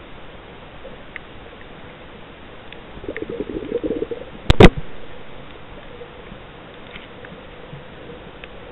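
Muffled underwater sound picked up by a submerged camera while snorkelling: a steady low hiss with scattered faint clicks, a rough low rumble for about a second from around three seconds in, then two loud knocks in quick succession about four and a half seconds in.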